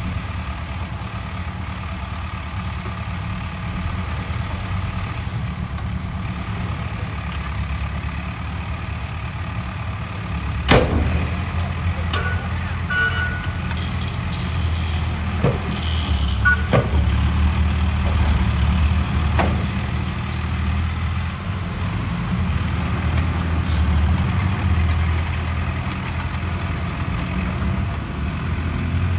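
Heavy diesel earthmoving machinery running steadily with a deep rumble, with several sharp knocks in the middle.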